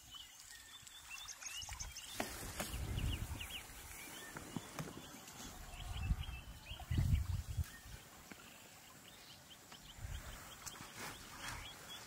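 Bush ambience: birds chirping in quick, short calls throughout, with several bursts of low rumble, the loudest about seven seconds in.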